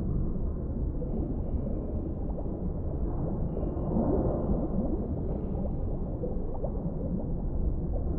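Underwater deep-sea ambience: a steady, deep, muffled wash of water with a few short gliding tones about four seconds in.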